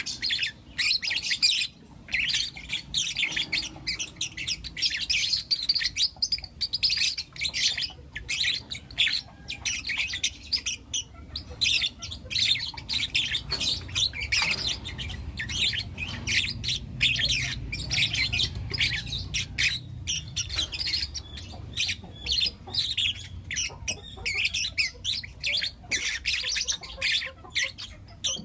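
Young lutino lovebirds chirping and squawking, a dense stream of rapid, high, short calls from several birds at once.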